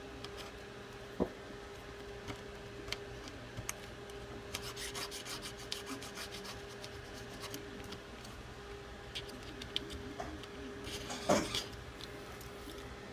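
Thin steel iSesamo pry tool scraping old screen adhesive off a Galaxy S7's metal midframe, in short scrapes and small clicks. A quick run of rapid scraping strokes comes about four to six seconds in, and the loudest scrape comes near the end, over a faint steady hum.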